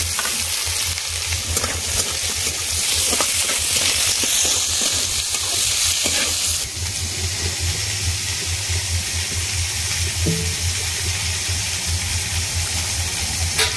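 Diced potatoes and carrots sizzling as they fry in oil in a metal kadai, a dense steady hiss that drops a little in level about halfway through. A low pulsing hum runs underneath.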